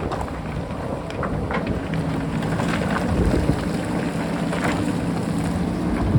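JCB backhoe loader's diesel engine running steadily, its tone firming up about two seconds in, with a few faint knocks and wind rumbling on the microphone.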